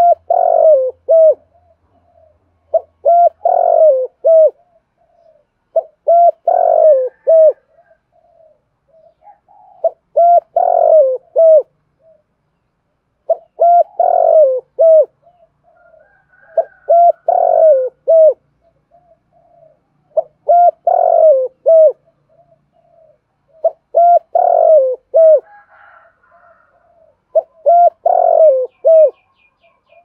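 Spotted dove cooing in short phrases of a few notes, repeated about every three and a half seconds. This is the calling of a decoy dove, used to provoke wild doves into answering.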